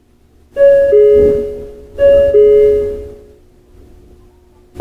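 Two-note electronic chime aboard a Hokuriku Railway 03 series train: a higher note then a lower one, sounded twice, each ringing out and fading. A short click comes near the end.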